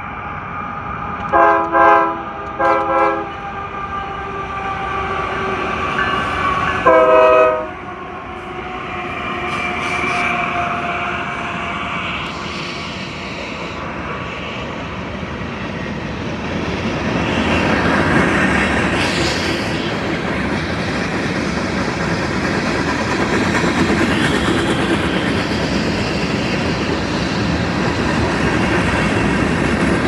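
Union Pacific freight locomotives sounding their multi-chime air horn for a grade crossing: a few short blasts in the first three seconds, then a longer one about seven seconds in. Then the loaded freight cars roll past with a steady rumble and clatter of wheels on rail, louder from about halfway through.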